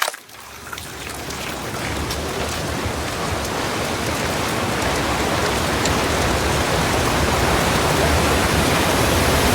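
Designed water sound effect: a steady rushing, splashing water noise with scattered drips, swelling gradually louder after a brief sharp hit at the very start.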